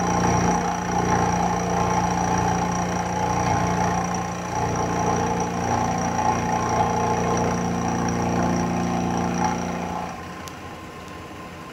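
Milling machine running with its carbide end mill cutting a V-groove into a metal spindle cap held in a dividing head: a steady machine hum with several held tones over the noise of the cut. About ten seconds in the machine sound stops, leaving a quieter steady hiss.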